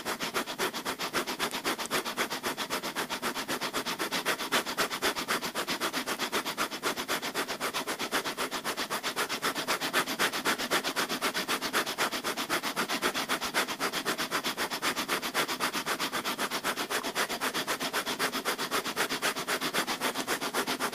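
Breath of fire: a man's rapid, rhythmic breathing through the nose, even short forceful breaths at about three a second, kept up without a break.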